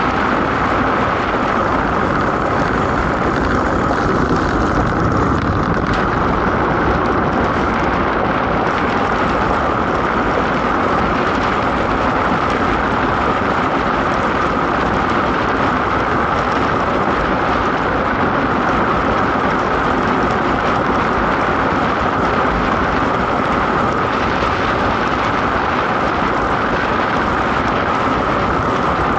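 DN iceboat sailing: its steel runners hiss and rumble steadily over the ice, mixed with rushing wind, at a constant loud level throughout.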